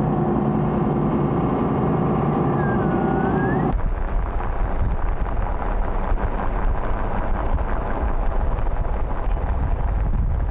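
A steady drone of several held tones that cuts off suddenly a few seconds in. It gives way to the even rumble of road and wind noise from a moving vehicle, which carries on steadily.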